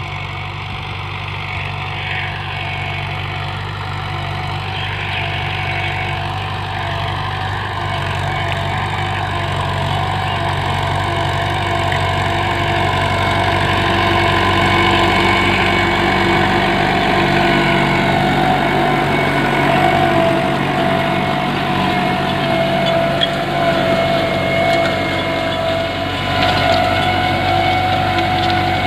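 Mahindra 475 DI tractor's diesel engine running steadily under load as it pulls a disc harrow, growing louder as the tractor comes closer.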